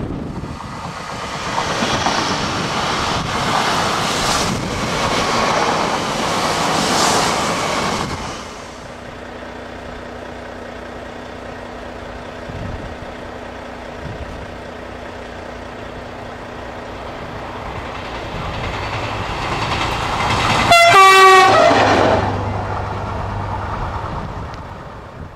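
A bimode TER railcar passing close by with a loud rushing of wheels on rail for the first eight seconds. Then a V211 diesel locomotive approaching with a steady hum, and about 21 seconds in one short horn blast of about a second, the loudest sound here.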